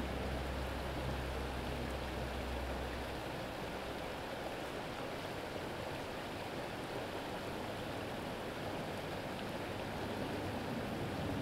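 Small stream's riffle running over rocks: a steady rush of water, with a low rumble underneath that fades out about three seconds in.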